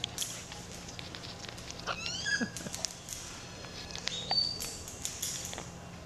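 Amazon parrot working its beak against the cage wire: irregular small clicks and taps, with a brief rising squeak about two seconds in and a short thin whistle a little after four seconds.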